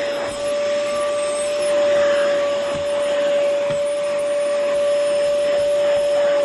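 Oreck Commercial XL Pro 5 canister vacuum cleaner running steadily: a constant motor whine over the rush of air.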